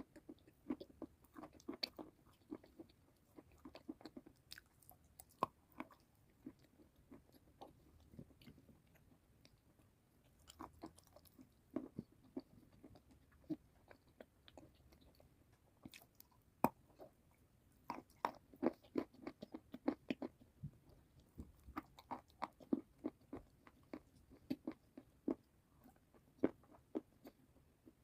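Close-miked chewing of crunchy food: clusters of sharp, crisp crunches between bites, with short quieter spells of softer chewing.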